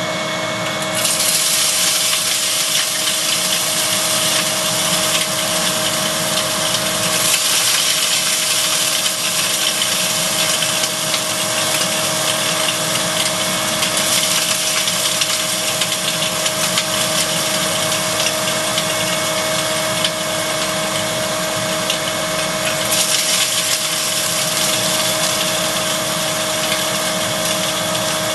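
Electric glass crusher running with its shop-vacuum dust collection, as art glass is fed in and crushed into frit: a dense grinding and crackling of glass from about a second in, over the steady whine of the motors.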